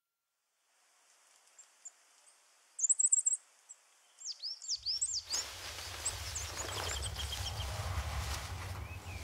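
Forest ambience with songbirds: after a moment of silence, a quick high trill about three seconds in, then a run of short swooping chirps. From about five seconds a low rumble and a steady rushing noise swell in under further chirps.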